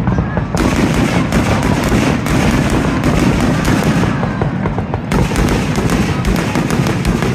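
Fireworks going off in a rapid, dense barrage of bangs and crackles.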